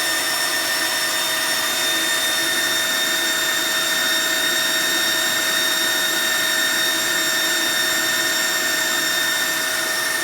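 GX-E-CS3 high-pressure PCP air compressor running steadily, a constant mechanical hum with a steady whine over it.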